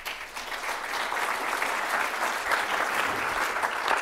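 Audience applauding: a crowd of many hands clapping that starts right away, builds within the first second and then holds steady.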